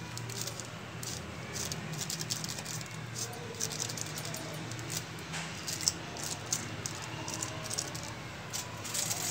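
Foil seasoning sachet crinkling and crackling in irregular little bursts as it is shaken and squeezed out over a pot of hot water, with a steady low hum underneath.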